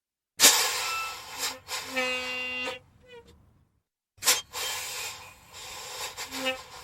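Heavy-vehicle air brakes releasing: a sudden sharp burst of hissing air, then a second hiss carrying a steady squealing tone. After a pause of about a second and a half, another sharp air-brake hiss starts and trails on.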